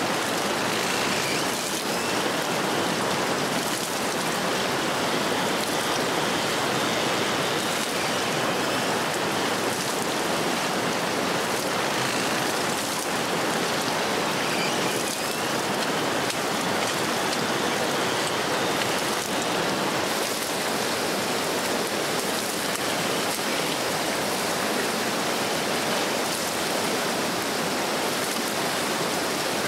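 Steady heavy rain falling, an even downpour hiss that does not let up.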